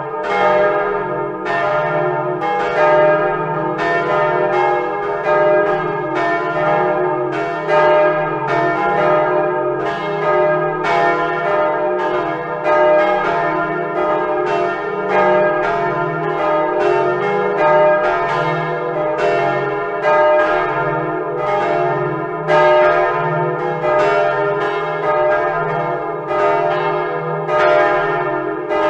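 Swinging church bells of Utrecht's Dom tower ringing together in a continuous peal, played back through a Scratch bell-ringing simulator. Strikes from several bells overlap, a few a second, each ringing on into the next.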